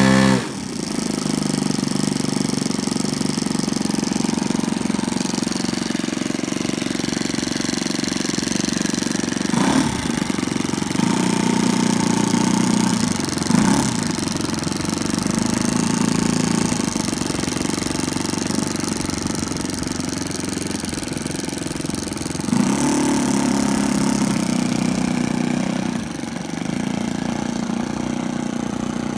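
Saito 1.50 single-cylinder four-stroke glow engine of a Hangar 9 Taylorcraft RC model plane, throttled back from high revs right at the start and then running steadily at low speed, with a few brief changes in speed.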